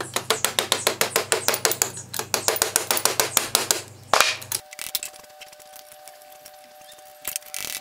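Vintage PFAFF 230 sewing machine mechanism turned over by hand, its gears and linkages clattering in a fast, even run of clicks, about six a second, that stops suddenly a little past halfway.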